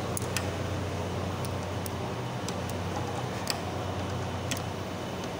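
Steady low hum with a few scattered light clicks and taps as the plastic parts and wiring of a hybrid battery pack are handled.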